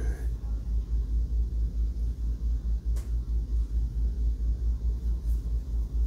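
Steady, fluttering low rumble with a single sharp click about three seconds in.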